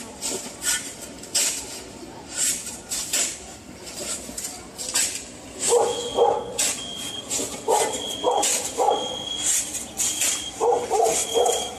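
A dog barking in short runs of two or three barks, over a scatter of sharp clicks.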